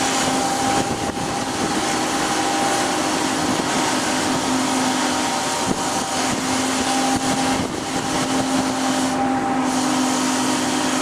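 Steady noise and hum of an oceangoing research ship's machinery while under way, with a low drone that drops out for about a second near the middle and a few faint knocks.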